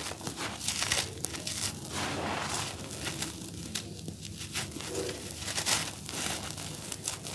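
Dry, grainy charcoal cake being crumbled by hand onto a powder-covered floor: a continuous gritty rustle of breaking pieces and falling grains, scattered with many small sharp clicks.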